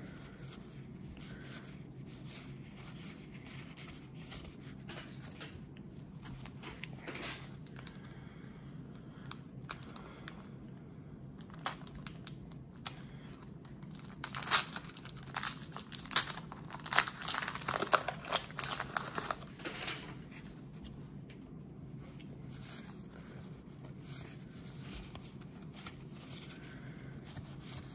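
Wax-paper wrapper of a 1991 Donruss baseball card pack being torn open and crinkled in a cluster of sharp crackles midway through. Softer rustling of stiff cardboard cards being handled comes before and after it.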